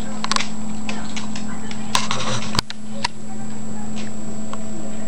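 A small dog eating dry kibble from a stainless steel bowl: a few scattered clicks and crunches, over a steady low hum.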